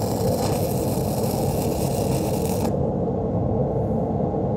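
Stick-welding arc of an E6010 electrode laying a tack weld on steel plate, a steady hiss that cuts off suddenly a little under three seconds in as the arc is broken. A steady low rumble runs underneath throughout.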